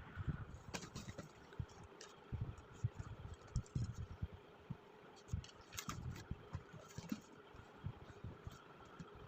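Faint, irregular handling noise from a package being unboxed: soft knocks, clicks and scraping.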